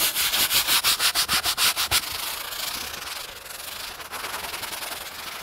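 Stiff hand scrub brush scrubbing a wet, textured fiberglass boat deck coated with deck cleaner. Quick back-and-forth strokes, about eight a second for the first two seconds, then steadier, slightly quieter scrubbing.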